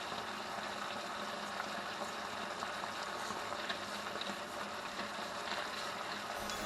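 Chicken feet cooking in a pot over the heat, just seasoned with pepper: a steady hiss with faint scattered pops.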